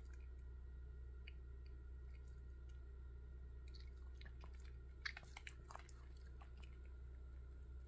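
A Pomeranian's mouth making small wet clicks and smacks as it licks its lips and chatters its jaw while waiting for a treat, with a quick run of clicks about five seconds in. A low steady hum lies underneath.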